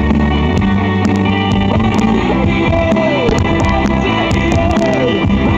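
Rock music with guitar, at a steady level, with a few sliding notes around the middle.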